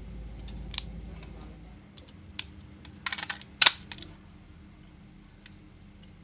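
Hard plastic toy pieces, a clear capsule and its black capsule holder, clicking and clattering as they are handled. Scattered light clicks, then a quick run of clicks a little past halfway that ends in one sharp, louder click.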